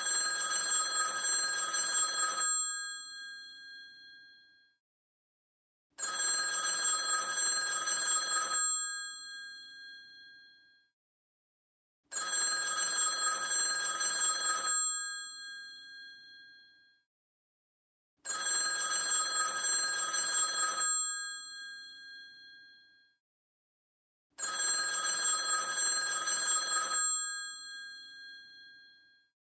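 Vintage telephone's bell ringing in a repeating cadence: five rings of about two and a half seconds each, roughly six seconds apart. Each ring leaves the bells sounding briefly as it fades.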